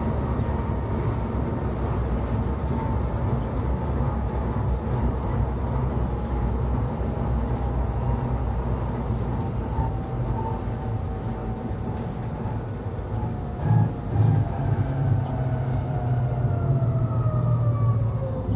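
Electric rack-railway railcar running downhill, heard from the driver's cab: a steady low rumble with a whine that falls slowly in pitch and then drops faster near the end as the car slows. Two short thumps come a little past the middle.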